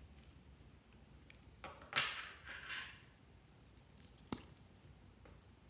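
Small plastic objects being handled: a short rustling scrape about two seconds in, then a single sharp click a little after four seconds as the penguin-shaped cap is pulled off a glue stick.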